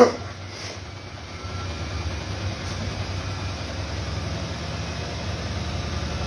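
Siemens Siwamat Plus 573 washing machine running with a steady low hum that grows gradually louder, after a brief knock right at the start.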